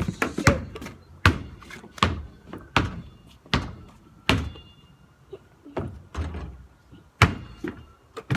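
A basketball being dribbled: a steady run of bounces, about one every three-quarters of a second, becoming sparser and fainter in the second half.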